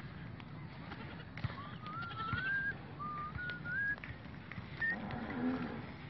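High whistled notes rising in short steps through the middle, then a goat bleats once near the end.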